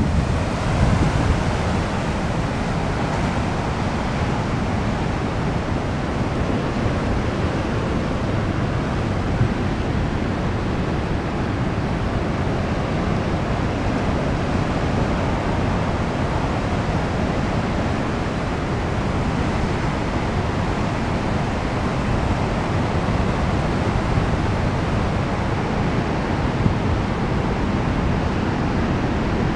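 Pacific Ocean surf at a king tide, breaking and washing over shore rocks and up the beach: a steady rush of water noise, slightly louder at the start.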